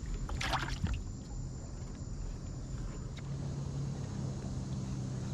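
Outdoor ambience of steadily trilling insects, a thin unbroken high note, over a low steady hum. There is a short rustle about half a second in.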